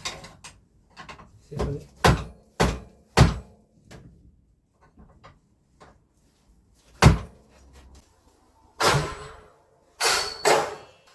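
Loose bicycle headset parts knocking and clunking as they are handled, taken out and set down: a string of sharp knocks, then a couple of longer clattering scrapes near the end.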